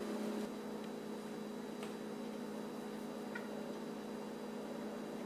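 Steady low electrical hum of room tone, with a couple of faint light ticks.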